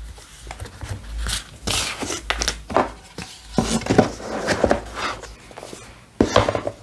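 Cardboard album boxes and their paper contents being handled: rustling and rubbing with a number of light knocks as a box is closed and set down on a table.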